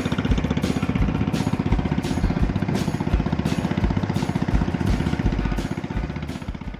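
Small engine running with a fast, even chugging rhythm, fading out near the end.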